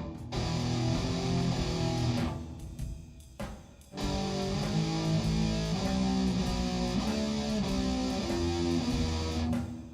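Guitar-led music playing over a steady bass line, with a brief drop-out about two and a half seconds in before it picks up again at about four seconds.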